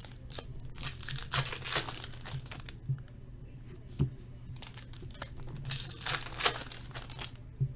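Hockey card pack wrappers crinkling and tearing as packs are opened, in irregular bursts with a couple of louder rips.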